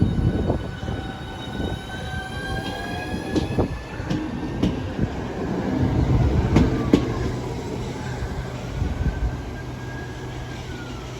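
Southeastern Class 395 high-speed electric train pulling away from the platform after a signal check. Its traction equipment whines in several tones that rise in pitch as it accelerates, over a low rolling rumble with sharp wheel clicks over the rail joints. A falling tone comes in near the end.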